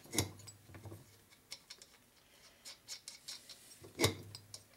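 Light metallic clinks and taps from a Harley-Davidson shovelhead engine's cylinder being handled on its crankcase, with two sharper knocks, one just after the start and one near the end.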